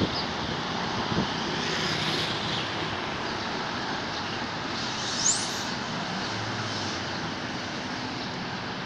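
Steady outdoor background noise, with one short rising high-pitched whistle about five seconds in.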